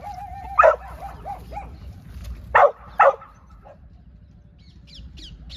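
Pit bull puppy barking during play: a wavering high whine, a loud bark about half a second in, then two more sharp barks close together.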